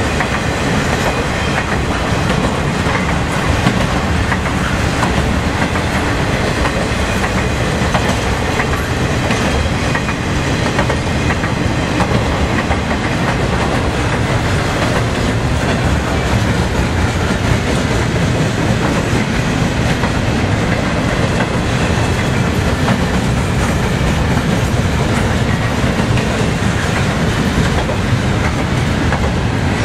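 CSX intermodal freight train's cars, loaded with trailers and containers, rolling past close by: a loud, steady rumble of wheels on rail.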